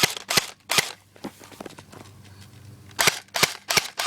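Airsoft guns firing BBs in a steady run of sharp shots, about two or three a second. The shots pause for about two seconds in the middle, with only faint clicks, then resume at the same pace.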